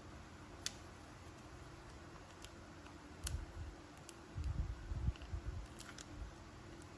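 Faint handling of action-figure toy packaging: scattered small sharp clicks, with a few soft low bumps between about three and five seconds in.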